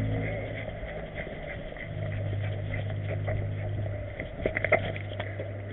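A motor vehicle's engine running with a steady low hum that fades for about a second and then comes back. A few light clicks sound about four and a half seconds in.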